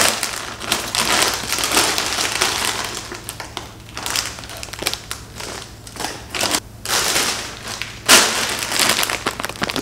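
Plastic candy packaging crinkling as it is handled: a bag of fun-size Twix bars and their individual wrappers, then a bag of Snickers Minis. The crinkling comes in irregular bursts, loudest in the first couple of seconds, with another sharp burst about eight seconds in.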